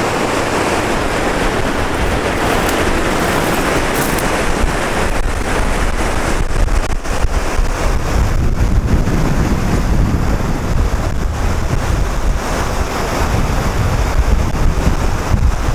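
Whitewater river rushing steadily over rocks, with wind buffeting the microphone, heavier in the second half.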